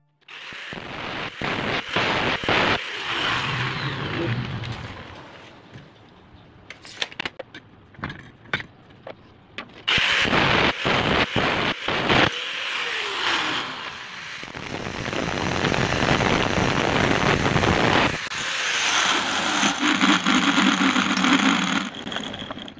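Electric angle grinder with a cutting disc cutting 1-inch square hollow steel tube with a 2 mm wall, in several long runs. Short knocks and clatter of the metal being handled come in between the runs.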